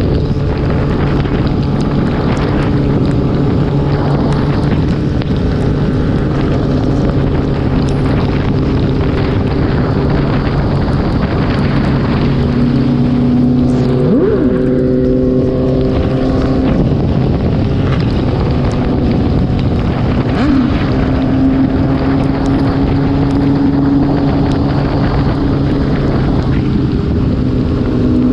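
Onboard sound of a Kawasaki ZX-10R's inline-four engine running at steady revs, under heavy wind rush across the microphone.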